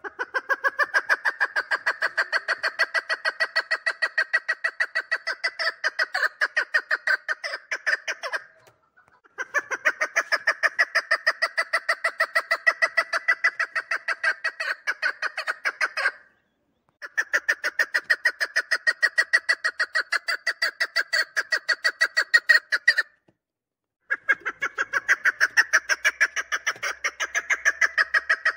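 Chukar partridge hen calling: a fast, even run of sharp repeated notes in long bouts of about seven seconds, breaking off briefly three times.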